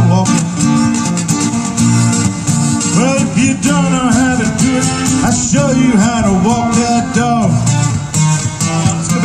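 Acoustic guitars strumming a steady rhythm in an instrumental break, with a lead melody over them whose notes slide and bend in pitch.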